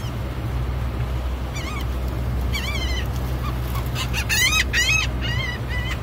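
Gulls calling: a few short calls, then a quick run of louder calls from about four to six seconds in. A steady low hum runs underneath.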